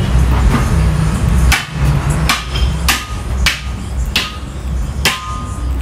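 A hammer striking metal: six sharp blows at an uneven pace, some leaving a brief metallic ring. A steady low rumble runs underneath.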